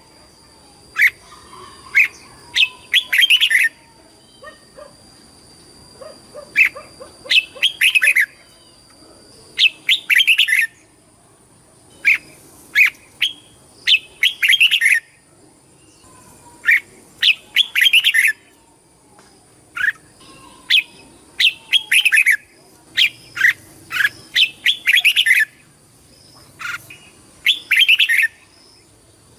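Red-whiskered bulbul singing: short, loud whistled phrases repeated every second or two.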